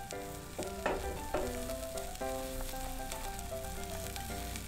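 Beaten egg sizzling in a nonstick pan as a rolled omelette cooks, with background music playing a melody of short notes over it.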